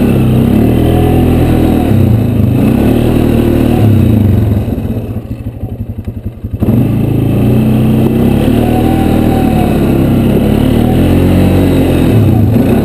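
Polaris Sportsman ATV engine revving up and down under throttle, heard close from the machine. About four and a half seconds in the throttle comes off and the engine drops to a low idle with separate firing pulses, then picks up again sharply a couple of seconds later.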